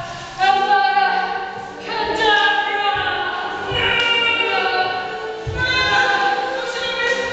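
Choral music: voices of a choir singing sustained, shifting notes, with a few low thuds underneath.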